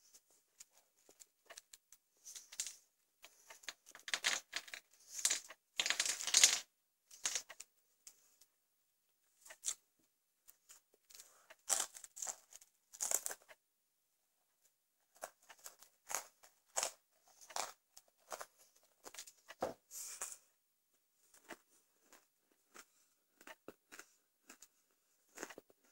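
A mouthful of thin salted pretzel sticks being crunched and chewed in irregular crackly bursts with short pauses, loudest a few seconds in.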